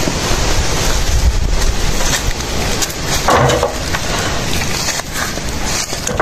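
Wind blowing across the microphone: a loud, steady rush with low rumble. A brief louder sound comes a little past three seconds in.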